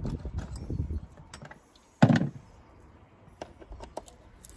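Hands and a small pick working at the plastic clips of a Mercedes Vito's air box: a low rumble of handling at first, one loud knock about two seconds in, then scattered light clicks.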